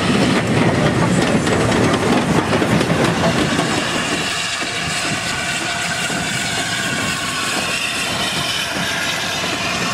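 A GWR Castle class and an LNER A4 steam locomotive, coupled together, running slowly past with rail-joint clatter and hiss of steam. It is heaviest for the first four seconds or so, then settles to a steadier, slightly quieter hiss and wheel noise.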